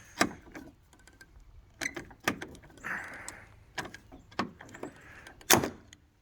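About six sharp clicks and knocks of small metal hardware and tools being handled during fitting of quick-release bumper latches, the loudest about five and a half seconds in.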